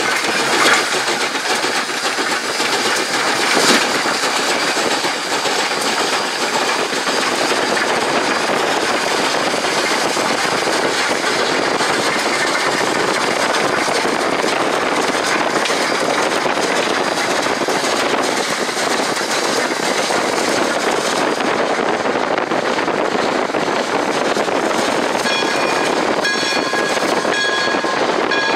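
Pere Marquette 1225, a 2-8-4 Berkshire steam locomotive, running hard past with a steady loud rush of exhaust and running gear, with a couple of sharp knocks in the first few seconds. Near the end a series of short, evenly spaced high ringing tones sounds over it.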